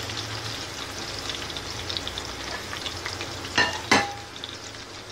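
Marinated chicken leg pieces shallow-frying in oil in a pan over a low flame: a steady crackling sizzle. About three and a half seconds in come two sharp knocks, the second with a short ring.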